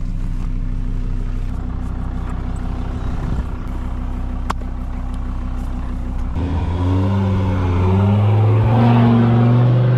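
Diesel car engine running steadily, then pulling away about six seconds in, its note rising as it accelerates.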